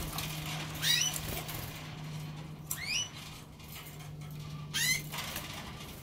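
Canaries giving short rising chirp calls, three of them about two seconds apart, over a steady low hum.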